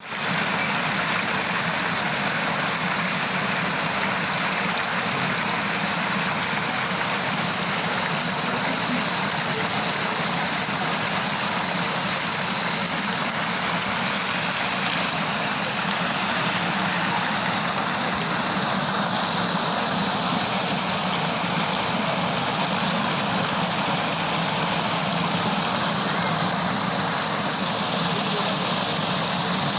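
A small waterfall: water falling and gurgling over rocks in a steady rush of noise.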